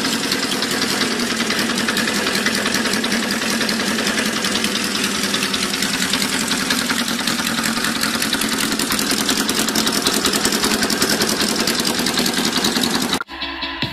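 Custom chopper's inline four-cylinder engine with individual carburettors idling, a fast even exhaust beat. It cuts off abruptly near the end and electronic music with record scratching takes over.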